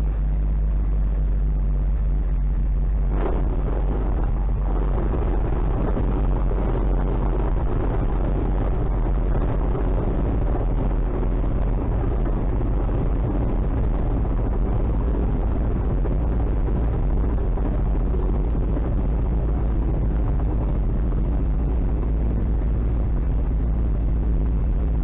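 Atec Zephyr ultralight's engine and propeller running steadily at low power while the aircraft rolls along the runway, heard from inside the cockpit. A short knock comes about three seconds in, after which the sound grows slightly fuller.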